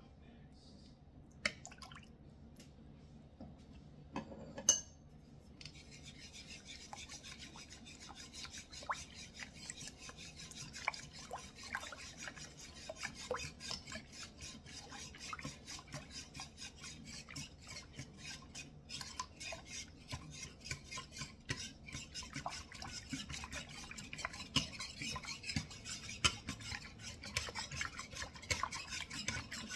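A Danish dough whisk stirring sourdough starter into liquid in a ceramic bowl: fast, continuous scraping and swishing of the wire loops against the bowl, starting about six seconds in after a couple of light clicks of a spoon against the bowl.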